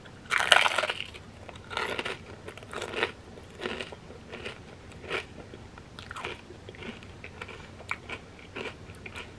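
Biting into a crispy fried wonton chip loaded with cheesy crab rangoon dip: one loud crunch about half a second in, then chewing with a crunch every half second or so, growing softer toward the end.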